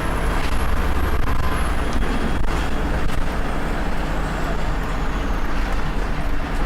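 Volvo B7RLE bus's turbocharged diesel engine running under way, with a low rumble and a thin, high turbo whistle that holds and then slowly falls in pitch. A few short knocks or rattles sound about halfway through.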